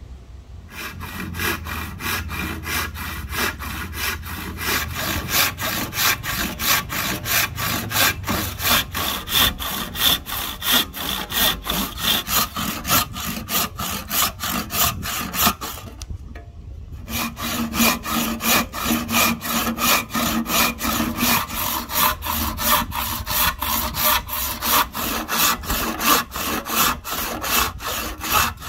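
Handsaw cutting a series of relief kerfs across a Siamese rosewood handle blank, in steady back-and-forth strokes. The sawing stops briefly a little past halfway, then starts again.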